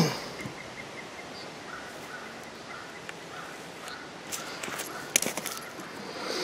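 Wooden beehive parts knocking as the hive boxes and frames are handled: one loud knock at the start and a few sharp clicks about four to five seconds in. A bird calls faintly in the background with short repeated notes.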